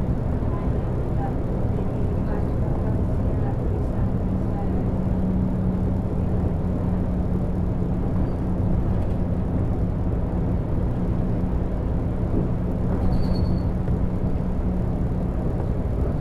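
Volvo B12BLE bus heard from the driver's seat, its DH12E 12-litre six-cylinder diesel and the drivetrain running with a steady low rumble. A steady buzz from the bus's faulty display runs under it, and a short high beep sounds about 13 seconds in.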